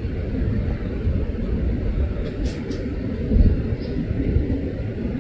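Low, steady rumble of a Boeing 747-400 freighter's four jet engines on final approach, swelling briefly about three and a half seconds in.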